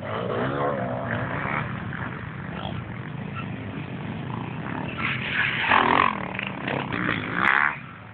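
Enduro motorcycle engine revving hard as the bike slides through a dirt turn, its pitch rising and falling, followed by louder bursts of throttle from motorcycles later on.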